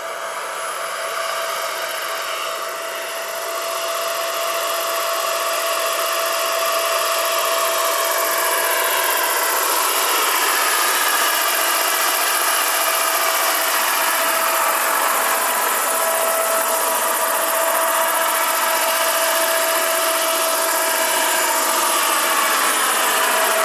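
Turbine engine and tandem rotors of a large scale model CH-46 helicopter in flight, a steady high whine. It grows louder over the first few seconds as the model comes closer, and several tones slide in pitch in the second half as it passes overhead.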